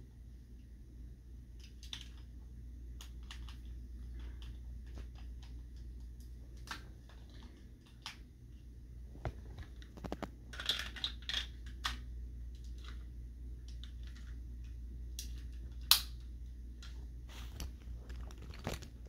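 Scattered small plastic clicks and taps from Beyblade tops and launchers being handled and fitted together, with a quick flurry of clicks about halfway through and one sharper, louder click later, over a faint low hum.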